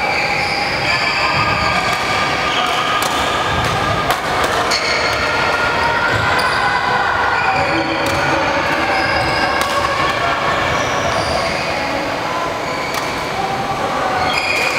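Badminton hall sounds: sneakers squeaking on the court floor in short, overlapping squeals, and shuttlecocks being struck by rackets in sharp cracks every few seconds.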